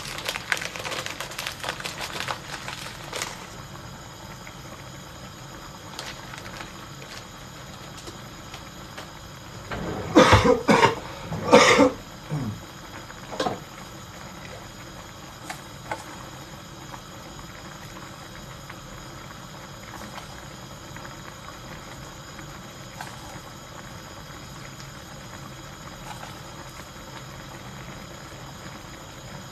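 A man coughing hard, three or four coughs in a quick cluster about ten seconds in and one more shortly after, from a sore throat. Light crackling in the first few seconds.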